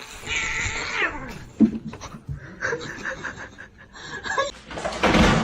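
A cat's drawn-out yowl that falls in pitch over about a second and a half, followed by a sharp knock.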